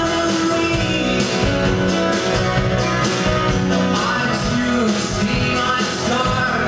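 A live band playing a country-rock song: two acoustic guitars strummed over a drum kit, with a man singing lead. High cymbal splashes come in regularly over the last few seconds.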